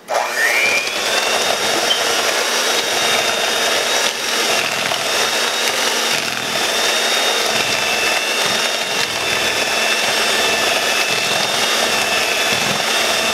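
Electric hand mixer running, its two beaters churning a butter, sugar and egg mix in a plastic bowl. The motor whine rises as it spins up at the start, then holds steady.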